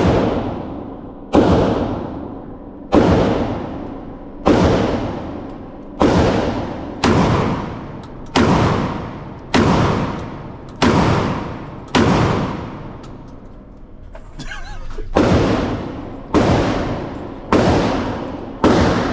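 Firearm shots fired one at a time in a steady string, about one every second and a quarter, each ringing out with a long echoing tail. There is a short pause about two-thirds of the way through before the shooting resumes.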